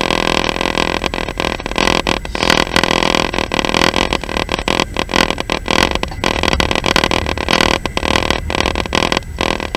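A passenger train running, heard from inside the carriage: a steady, dense noise with frequent brief dips in level.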